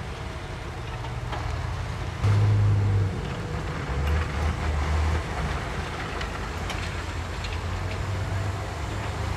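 Heavy diesel dump truck engines running, revving up sharply about two seconds in and again about four seconds in while the tipper bed is hydraulically raised to dump rock.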